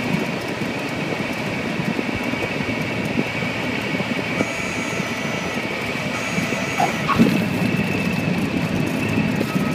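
Cockpit noise of a Cessna 172 rolling out on the runway just after landing: the four-cylinder engine idling and the propeller turning, with a steady whine over the top. A brief knock about seven seconds in.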